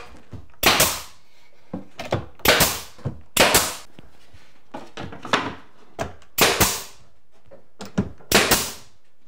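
Pneumatic staple gun firing staples through thin wood filler strips into cabinet tops: about six loud sharp shots at uneven intervals, with a few lighter knocks between.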